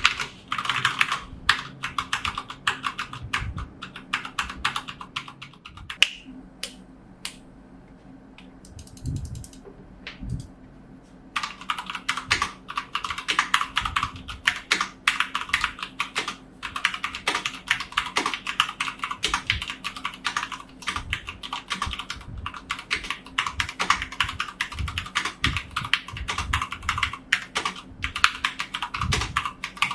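Typing on a Dareu A87 tenkeyless mechanical keyboard with stock Cherry MX Red linear switches: a fast, steady clatter of key presses. About six seconds in it thins to a few scattered key presses for several seconds, then the steady typing resumes.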